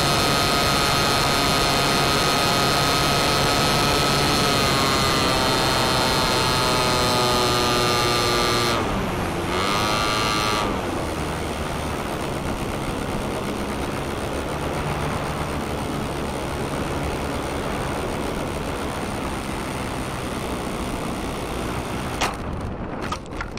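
Radio-controlled plane heard from onboard: its motor whines steadily, the pitch falls away, rises briefly about ten seconds in, then cuts out. After that only wind rushes past the airframe as it glides in, with a few knocks near the end as it touches down.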